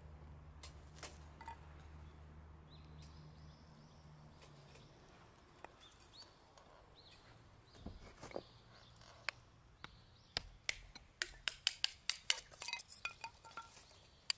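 Sharp clicks and light clinks of kindling sticks being handled and laid on the metal grill of a small fire stand. There are a few at first, then a quick run of them in the last few seconds. A low steady hum stops about five seconds in.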